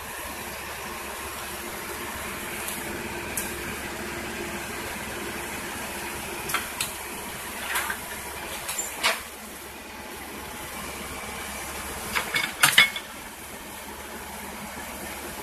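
Excavator engine running steadily, with a few sharp metallic clanks and knocks scattered through; the loudest cluster comes about three-quarters of the way in.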